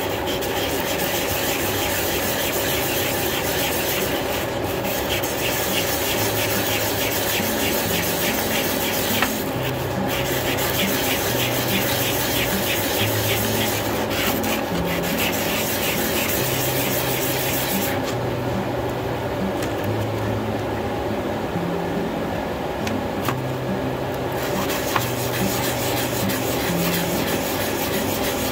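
A small acrylic piece is rubbed back and forth by hand on a sheet of sandpaper, a continuous scratchy rasp of quick strokes that eases off for a few seconds past the middle. The acrylic is being sanded down thinner to make a master for sand casting.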